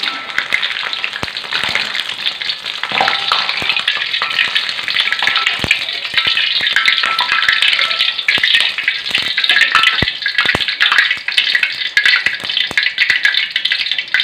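Hot cooking oil sizzling steadily in a wok as fried tempeh is scooped out with a wire strainer and metal spatula, with frequent light metallic clicks and scrapes of the utensils against the wok.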